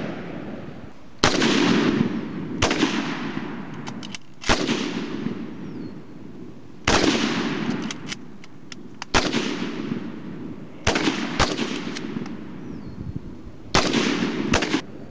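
Springfield Armory M1A rifle in 7.62x51 NATO (.308) fired semi-automatically: about seven loud shots, irregularly one to three seconds apart, each trailing off in a long echo.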